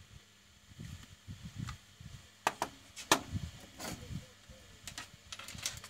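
Plastic casing of a WiFi modem being handled and turned over in the hand: a few sharp clicks and knocks, the loudest around the middle and a quick run of them near the end, over low rumbling handling noise.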